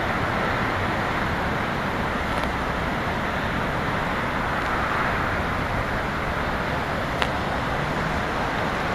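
Steady street traffic noise, an even rush of passing cars, with one sharp click about seven seconds in.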